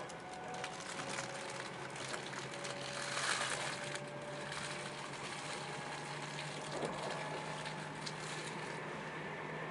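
Meitetsu μSKY (2000 series) electric train running, heard from inside the car: a steady rumble and hiss of wheels on rail with a faint motor whine and occasional light clicks, the hiss swelling briefly about three seconds in.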